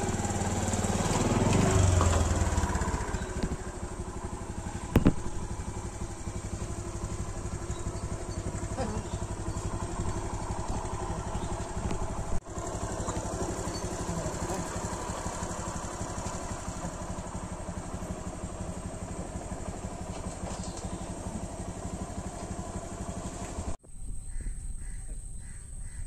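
A steady motor-engine drone; in the first few seconds it grows louder and its pitch slides down as a vehicle passes. A sharp click comes about five seconds in.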